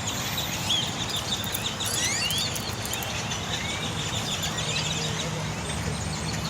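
A large flock of birds calling together, many overlapping short rising chirps and whistles, over a steady low rumble.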